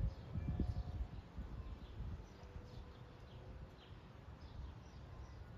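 Wind buffeting the microphone, heaviest in the first second or two, with a small bird chirping in the background: short high chirps about two a second.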